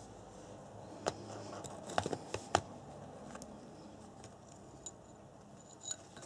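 A handful of small, sharp clicks and taps, bunched between about one and two and a half seconds in, then two fainter ticks near the end: hands handling a 550-size brushed electric motor and its wire leads with metal bullet connectors.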